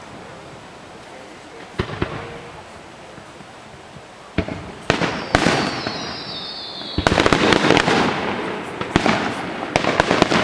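Fireworks display: single bangs about two and five seconds in, a falling whistle around the middle, then a dense run of crackling and bangs from about seven seconds on.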